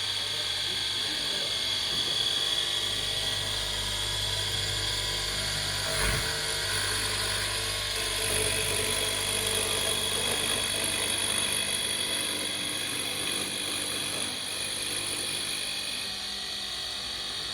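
Old Festool overhead spindle router's motor running steadily at speed with a high whine, with a brief thump about six seconds in.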